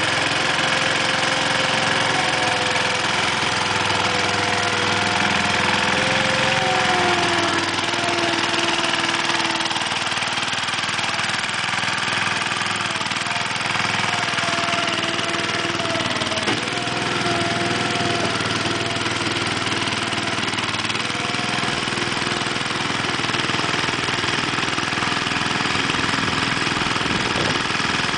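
Case 1816 mini skid steer's 16 hp Tecumseh engine running steadily, its pitch shifting slightly a few times.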